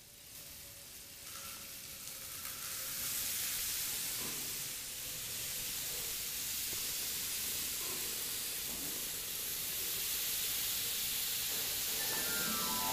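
Steady background hiss, growing louder over the first few seconds. Near the end a harp starts a descending run of notes.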